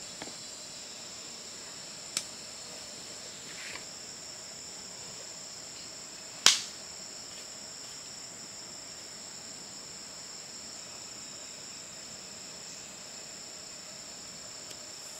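Steady, high-pitched chorus of forest insects running without a break. Two sharp clicks cut through it, a small one about two seconds in and a louder one about six and a half seconds in.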